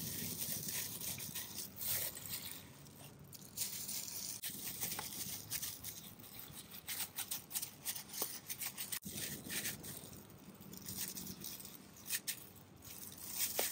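Disposable plastic glove crinkling and shredded raw taro rustling as a hand spreads and presses the yam-cake mixture into a square metal tin: a run of irregular dry crackles and rustles.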